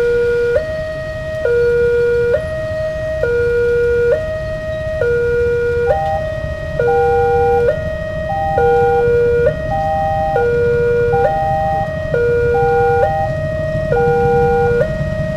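Railway level-crossing warning alarm sounding a two-note high-low signal, each note about a second long. From about six seconds in, a third, higher note joins the pattern. It warns that a train is approaching and the barriers are closing.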